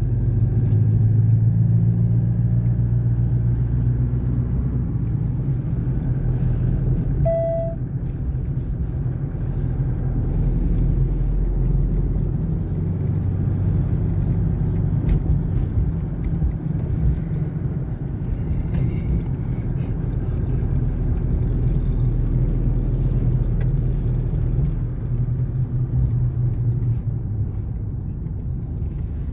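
Steady low hum of a car's engine and tyres on the road, heard from inside the cabin while driving. A short beep sounds once about seven seconds in.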